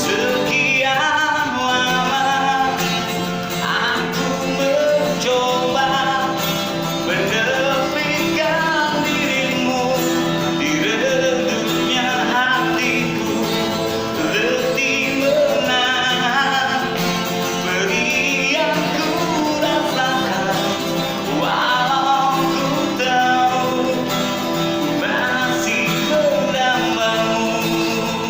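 Acoustic guitar accompanying a man singing a slow pop ballad.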